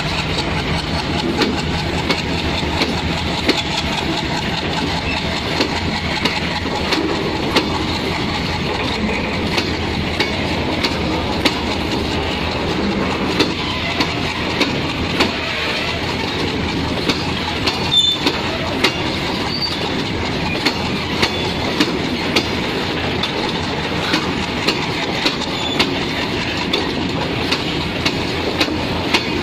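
Long rake of oil tank wagons rolling slowly past close by, a steady rumble and rattle with the wheels clicking over rail joints about once a second, often in pairs.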